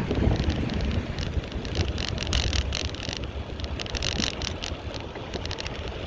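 Ride on a bicycle with wind rumbling on the microphone, overlaid by irregular light clicks and rattles from the bike.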